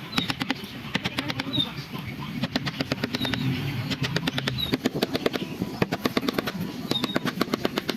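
Rapid, irregular tapping and scraping of a carving tool working wood, several sharp clicks a second in clusters.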